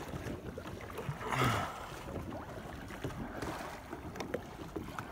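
Water lapping and dripping around a kayak, with wind on the microphone; a louder rush of noise about one and a half seconds in.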